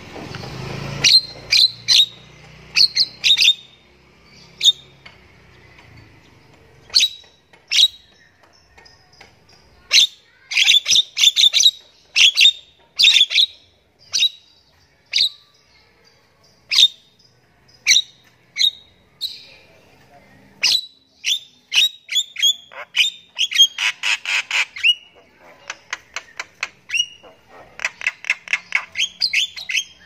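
Javan myna calling in vigorous song: a long string of short, sharp whistled notes, some single and some in quick clusters, with two runs of fast repeated chattering notes near the end.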